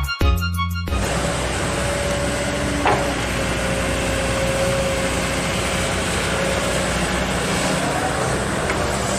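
Excavator engine running steadily with a held whine, heard as field sound from the machine at work; music cuts off about a second in.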